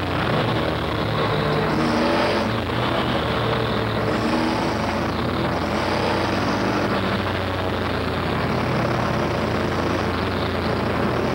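Race truck's engine running hard under racing load, heard from inside the cab, its pitch rising and falling.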